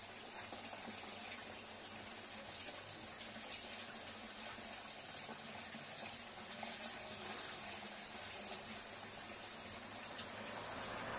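Steady running water, with a faint low hum underneath.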